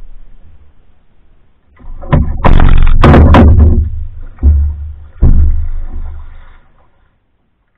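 Hollow knocks and thumps against a canoe hull as gear is handled and loaded: a loud cluster about two seconds in, then two more single thumps.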